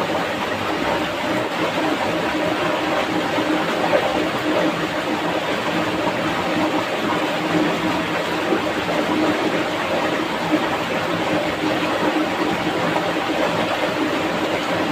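Swift, shallow rocky stream rushing over stones close by: a steady, unbroken noise of fast white water.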